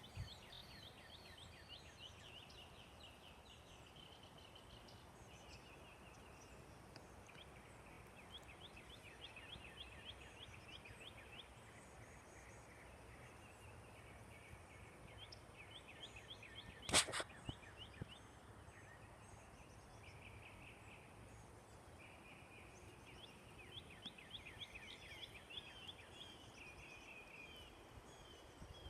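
Faint, repeated rapid trilling calls, high-pitched, in runs of a few seconds each, with one sharp click about 17 seconds in.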